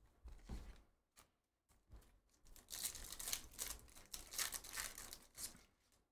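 A trading-card pack wrapper being torn open by hand: a few faint rustles, then a run of crinkling and tearing from about two and a half seconds in that stops shortly before the end.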